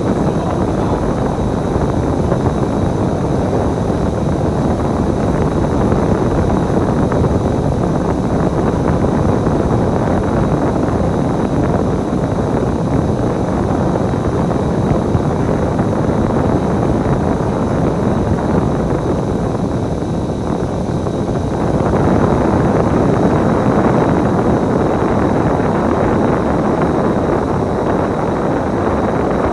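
Bus running, heard from inside the cabin: a steady engine and road rumble that eases off about twenty seconds in, then picks up again.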